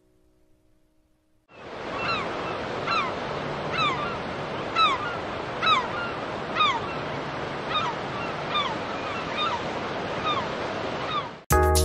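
Sea waves and wind with a bird's short descending call repeated about once a second. It starts a second and a half in and cuts off suddenly near the end.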